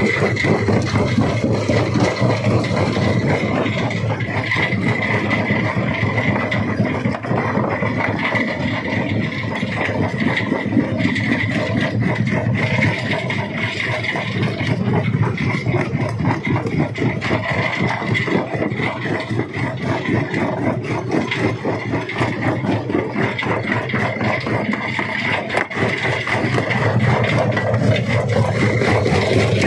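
Rock crusher machine running steadily, with a continuous rattle and grinding of stone being crushed.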